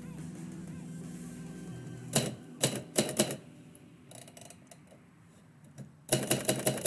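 Typewriter keys striking: a few separate keystrokes, quieter clicking, then a fast run of keystrokes near the end.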